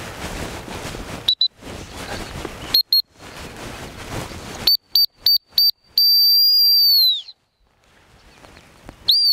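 Gun dog training whistle: two short pips, then two more, then four quick pips, then one long blast of about a second that drops in pitch as it dies away. A brief bent blast comes near the end. The double pips are the cue for a quartering dog to turn and change direction. A rustling noise runs between the blasts.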